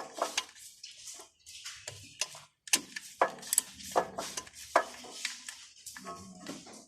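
Irregular metal clinks and knocks, like hand tools being picked up, set down and worked on metal, coming several times a second in uneven runs.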